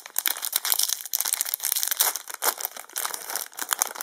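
Foil Yu-Gi-Oh booster pack wrapper crinkling as it is handled and torn open: a dense run of crackly crinkles.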